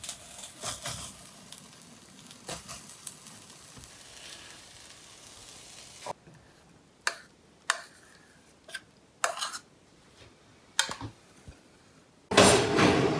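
An omelette sizzling in a non-stick frying pan while a plastic spatula scrapes and taps against it. About six seconds in the sizzle stops, and a spoon knocks against a metal saucepan five or six times as baked beans are spooned out. A loud, dense noise starts near the end.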